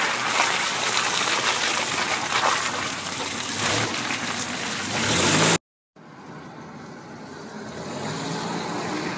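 1992 Toyota 4Runner driving through mud: a loud, steady rushing noise of the tyres in mud and wind on the microphone held out beside the front wheel, which cuts off suddenly about five and a half seconds in. After the cut, the truck's engine runs more quietly, heard from inside the cab.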